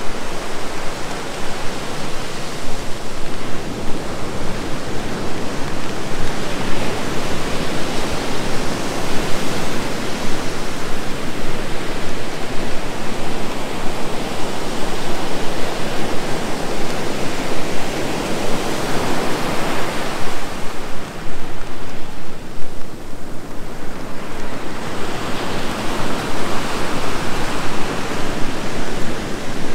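Ocean surf breaking and washing up the beach: a continuous wash of noise that swells and eases with each wave, with a short lull about two-thirds of the way through.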